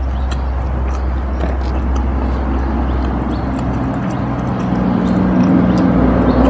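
Close-mic chewing of a mouthful of food, with many small crackling clicks, over a steady low hum.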